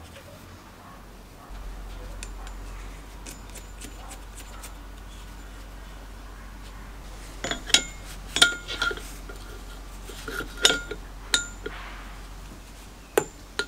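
Steel hand tools clinking against a small two-stroke engine's flywheel and fan fins: a run of sharp metallic clinks, some with a short ring, starting about halfway through, then one more near the end.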